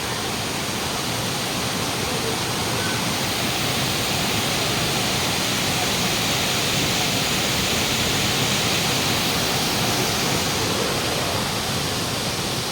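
Waterfall rushing: a steady wash of falling water that swells slightly in the middle.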